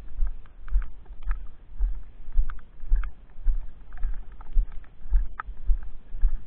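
Footsteps walking through snow, about two steps a second: a low thud with each step and short crunching crackles.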